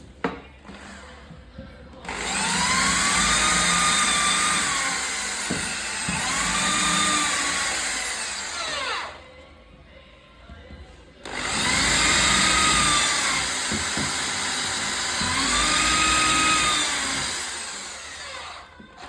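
Electric drill driving screws into a bed's hydraulic lift fitting, running in two long stretches with short pauses between them. The motor's pitch climbs, holds, then sags as each screw goes in and tightens.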